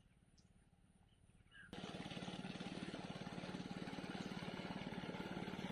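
A small engine starts up abruptly a little under two seconds in and runs steadily with a fast, even pulse. Faint bird chirps come before it.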